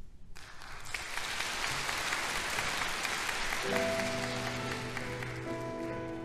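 Audience applauding, then a little over halfway through an orchestra with violins starts playing sustained notes as the applause dies away under it.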